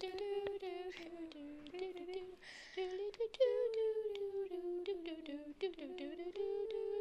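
A teenage girl's voice humming a tune in long notes that glide up and down, with small clicks between them.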